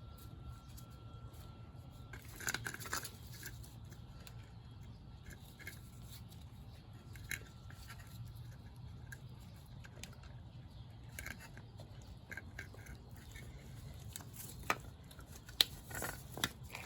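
Faint, scattered clicks and scrapes of a BMW E46 hood release cable and plastic latch being handled and slid into place, over a low steady hum; a few louder clicks about two and a half seconds in and near the end.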